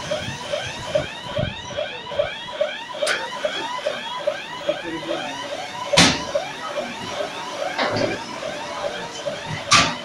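Forklift reversing alarm warbling in a steady repeating chirp about three times a second, the sign that the truck is backing up. A few sharp metal clanks cut in, the loudest about halfway through and near the end.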